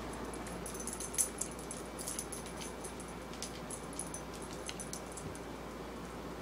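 Siberian husky's claws clicking on a tile floor, with light metallic jingling, as it moves about with a plush toy. The clicks are scattered and bunch up about one to three seconds in, the sharpest about a second in, over a steady low hum.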